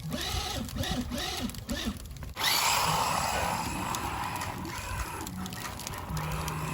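An RC truck running through snow: its motor and spinning tires make a steady, hissing whir that starts abruptly about two and a half seconds in.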